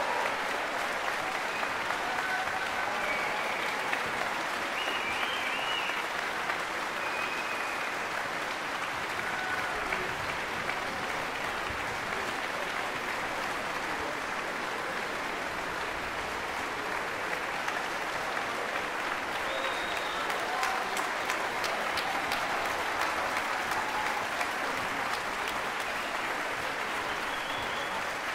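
Concert audience applauding, a steady, even clapping that holds at one level throughout.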